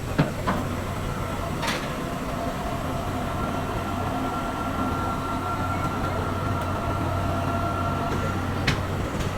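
A ferry's engine running with a steady low drone. There are a few sharp knocks in the first two seconds and one more near the end, and a steady high tone sounds in between.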